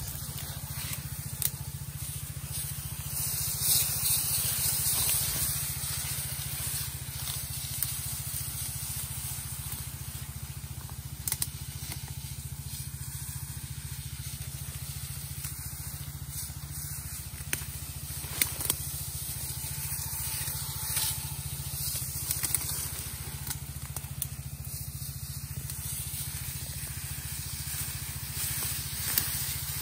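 Power sprayer spraying herbicide through a hand lance: a steady hiss of spray over the steady low hum of the small pump engine, with short crackles and rustles of vegetation now and then.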